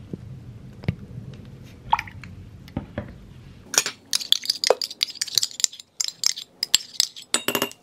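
Metal spoon scraping thick aloe vera gel out of a stainless steel measuring cup into a glass measuring cup, with metal-on-metal and metal-on-glass clinks. A few scattered clicks at first, then quick repeated scraping and clinking from about four seconds in.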